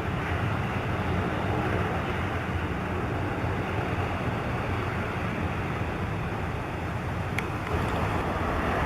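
Steady low rumble of aircraft engines running, heard as an even roar with a couple of faint ticks near the end.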